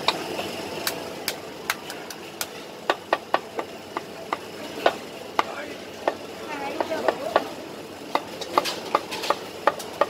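A cleaver chopping poached chicken breast on a round wooden chopping board: a string of sharp, uneven chops, some in quick runs.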